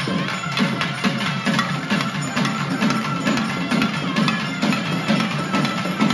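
Temple melam ensemble playing: two reed pipes hold a melody over rapid, steady drumming on a laced barrel drum and small hand drums.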